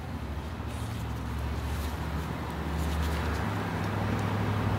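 Low, steady hum of a motor vehicle's engine running, growing louder, its pitch stepping up about three and a half seconds in.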